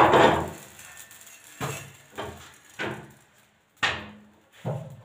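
Metal kitchenware knocking: an iron tawa griddle and a plate clank together in about six sharp knocks, each ringing briefly, the first the loudest.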